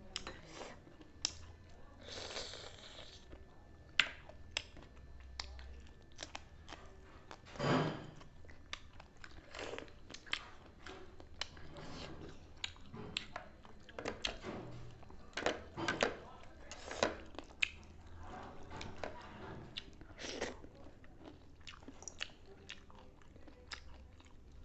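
Close-up eating sounds: chewing and biting into food, with crunchy bites and many short sharp clicks scattered throughout.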